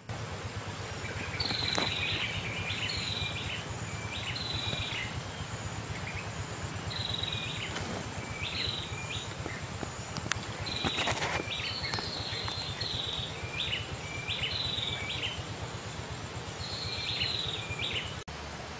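A songbird singing short, repeated phrases every second or two over steady outdoor background noise, with a few sharp clicks along the way.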